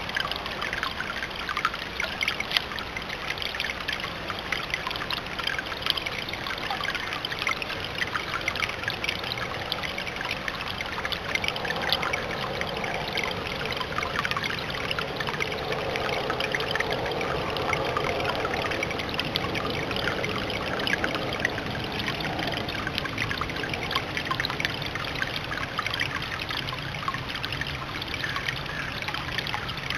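Water from a stone fountain trickling and splashing over rock, steady, with many small splashes and a fuller, lower splashing for several seconds in the middle.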